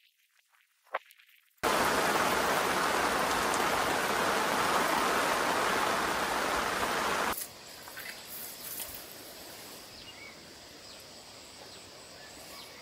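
Heavy rain falling steadily, a loud even hiss that starts abruptly about a second and a half in and cuts off abruptly about seven seconds in. After that only a much fainter steady hiss with small ticks remains.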